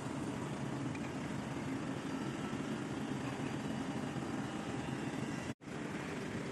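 Steady running noise of a CNC mortise and tenon machine, an even low machine drone, which drops out for an instant about five and a half seconds in.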